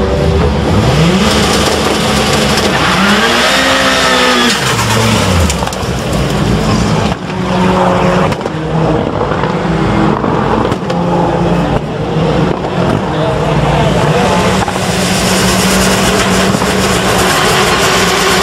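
Rallycross cars' engines revving on the start grid: the pitch climbs, peaks and drops in the first few seconds, then is held at high revs with small rises and dips.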